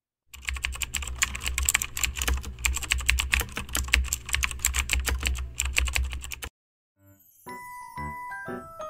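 Computer-keyboard typing sound effect: rapid, dense clicking for about six seconds that cuts off suddenly. After a brief pause it is followed by a short run of bell-like chiming notes.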